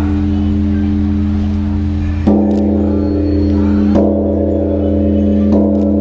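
Large bronze temple bell struck with a suspended wooden log, three strokes about a second and a half apart, each one over the deep hum of the bell still ringing from before.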